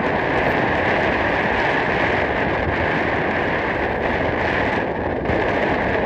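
Steady rushing wind on the microphone, even and unbroken, with no bird calls standing out.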